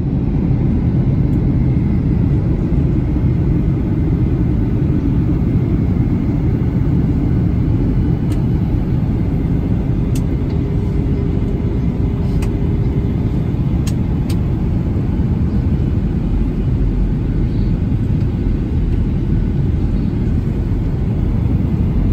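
Steady low rumble of engine and airflow noise inside the cabin of a Boeing 737-900 in flight, with a few faint clicks partway through.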